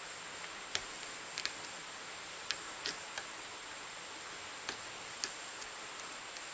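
Small, irregular clicks of a lock pick probing and lifting the pin stacks of a five-pin Viro lock that has security pins, about ten of them spread unevenly, over a steady hiss.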